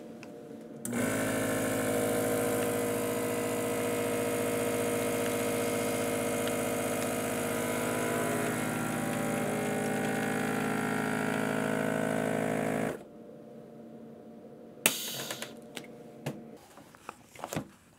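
Vacuum sealer's pump motor running with a steady hum for about twelve seconds as it draws the air out of the bag, then cutting off abruptly. A sharp click follows a couple of seconds later.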